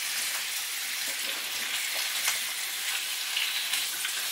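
Chopped courgette, yellow pepper and onion sizzling steadily in hot olive oil in a frying pan on full heat, with a few light clicks as the pieces are turned with metal tongs.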